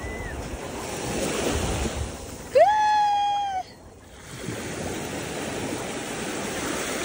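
Small waves washing up over sand at the water's edge and draining back, the wash swelling and fading. About two and a half seconds in, a loud high cry rises and then holds for about a second, louder than the surf.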